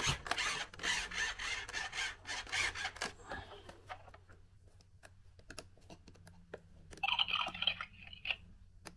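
Plastic balls clattering and rattling in a Bright Starts ball-popper toy, a quick run of clicks for about three seconds as the toy turns out to still work. Then scattered light clicks of the plastic being handled, and a brief higher-pitched burst near the end.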